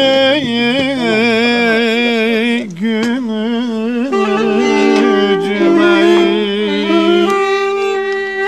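Folk music on a clarinet and a violin. For the first four seconds a single wavering, ornamented line with heavy vibrato leads, then the two instruments play held notes together, stepping from note to note.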